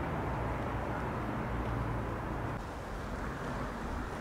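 Steady outdoor town background noise around a railway station, mostly a low rumble, easing slightly about two and a half seconds in.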